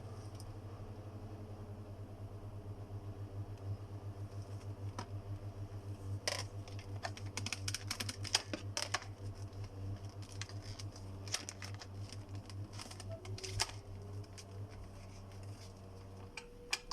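Plastic parts of a Bissell Featherweight stick vacuum being handled and fitted back together: a run of sharp clicks and snaps in the middle. Under them is a steady low hum that stops about a second before the end.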